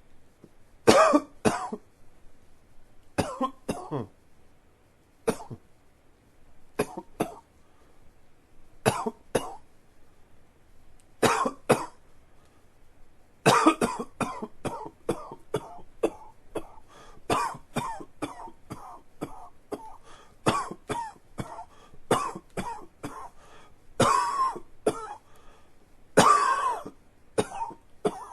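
A man coughing from allergies: short double coughs every couple of seconds, then from about halfway a long fit of rapid coughs with hardly a pause.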